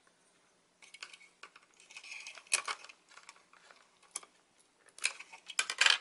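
Irregular small clicks and light clatter of hard plastic and metal parts being handled on an opened laptop, with a screwdriver being set into place. The handling starts about a second in, and the sharpest clicks come near the end.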